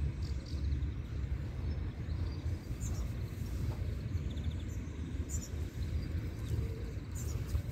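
Outdoor park ambience: a steady low rumble with a few faint bird chirps.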